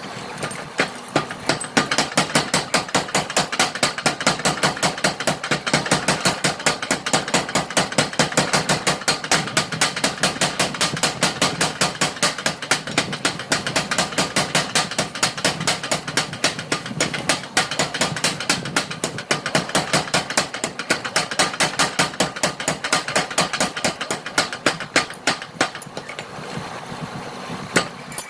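A 100 kg mechanical power hammer pounds hot steel at a fast, even rate of about four blows a second, the sledge hammer head being forged out of railway rail steel.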